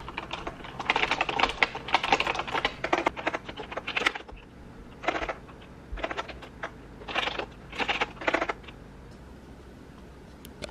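Typing on a retro typewriter-style keyboard with round keycaps, which sounds good after the keyboard swap. A fast run of key clicks lasts about three seconds, then comes several short bursts of typing, and it stops about two seconds before the end.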